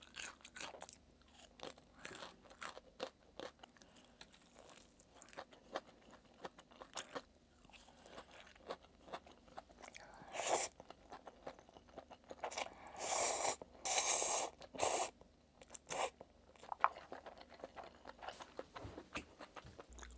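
Chewing and crunching on battered fried food, then a few louder slurps of spicy stir-fried cup noodles from about halfway through.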